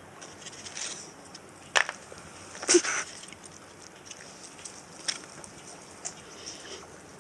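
Plastic tub and cardboard egg-crate pieces being handled and set down on concrete: light rustling with a few sharp taps and clicks, the loudest a little under three seconds in.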